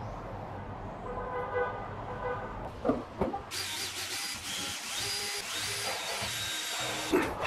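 Cordless drill/driver running into a pine upright, starting abruptly about halfway in with a steady motor whine that steps in pitch. Before that there is a low hum with a brief pitched tone and a couple of knocks.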